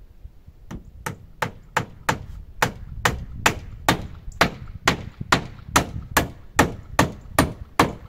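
Hammer driving nails into wooden cladding boards on a shed wall: a steady run of sharp blows, about two to three a second, starting just under a second in.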